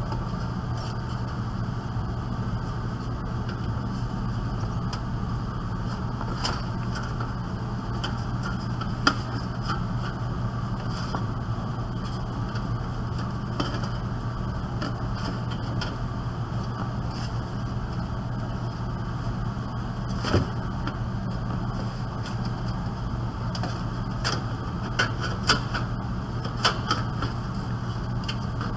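Scattered light clicks and knocks of a screwdriver and screws against a desktop computer case's metal chassis as the motherboard is unscrewed and taken out, with a cluster of several clicks near the end, over a steady low hum.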